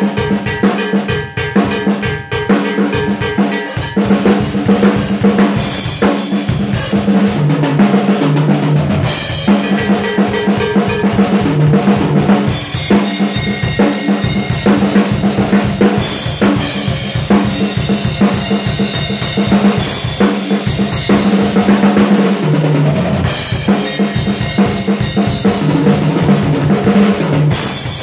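PDP acoustic drum kit played with sticks in a 6/8 groove: bass drum, snare and cymbals without pause, with lower tom strokes breaking in about a third of the way through and again near the end.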